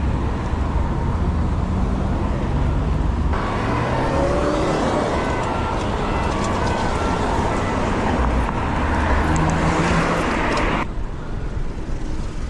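City road traffic: car engines and road noise at busy intersections, with wind rumble on the microphone of a moving bicycle. The sound changes abruptly about three seconds in and again near the end, and an engine rises in pitch at about four seconds.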